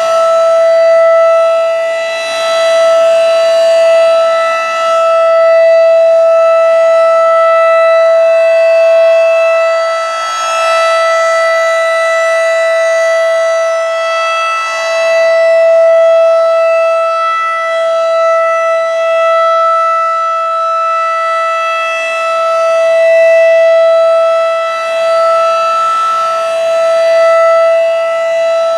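Federal Signal 2001 rotating outdoor warning siren sounding a steady Alert tone at full speed, holding one pitch. Its loudness swells and fades every few seconds as the rotating horn sweeps past.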